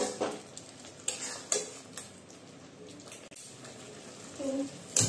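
Flat metal spatula stirring and scraping thick green chicken gravy around an aluminium kadai, several separate strokes over a faint simmering sizzle as the gravy is cooked down to release its oil. A sharper knock near the end.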